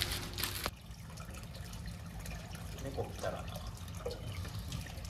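Rainwater dripping and trickling on a wet street, a soft steady patter with scattered drips over a low hum. A brief clatter at the start cuts off suddenly under a second in.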